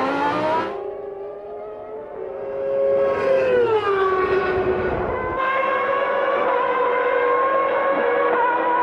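A 1996 Formula One car's 3-litre naturally aspirated engine running at high revs. Its pitch drops over about half a second some three seconds in as the car slows and changes down, then holds a steady high note. The sound changes abruptly twice, as the shot switches between cars.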